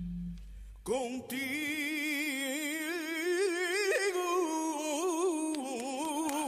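A solo voice singing one long held phrase with wide vibrato, starting about a second in after a brief lull.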